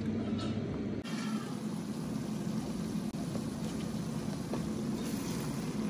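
Sliced red onions frying in hot oil in a pot: a steady sizzle as a slotted spatula stirs them. A steady low hum at the start drops away about a second in.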